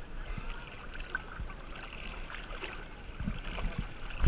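Water lapping and sloshing against a half-submerged action camera at the sea surface, with small splashes and a few soft thumps near the end.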